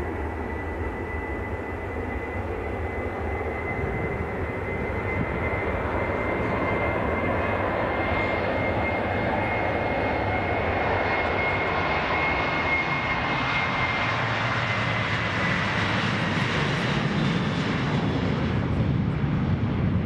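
Boeing 737-800's twin CFM56-7B turbofan engines at takeoff power on the takeoff roll: a steady high fan whine over a broad jet rumble, growing louder as the airliner accelerates toward and past the listener. In the last few seconds the whine fades and the low rumble grows.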